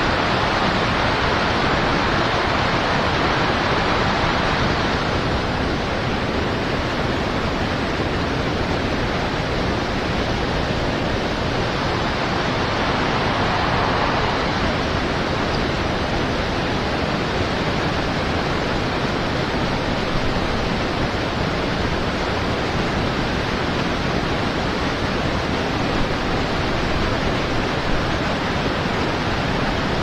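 Steady rushing of river water flowing past, an even noise that stays level throughout.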